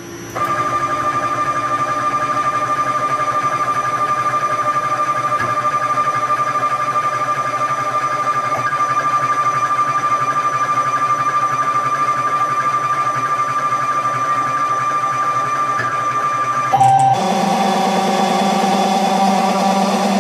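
Bipolar two-phase stepper motors on a CNC machine running at a constant step rate, giving a steady high whine. Near the end the pitch drops suddenly to a lower whine, with a brief louder moment at the change.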